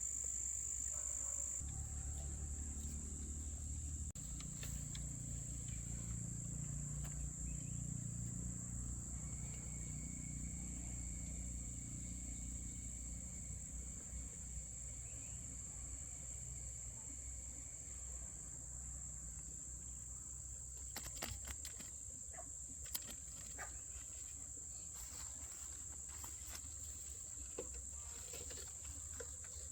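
Steady high-pitched insect drone running without a break, over a low rumble in the first half and a few sharp clicks near the end.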